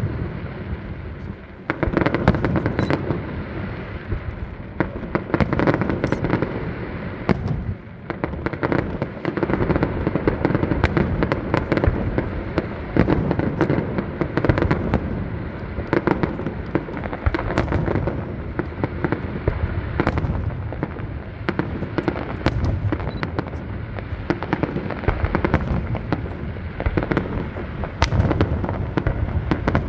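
Fireworks display: a dense, unbroken barrage of bangs and crackles, many sharp reports in quick succession over a low rumble.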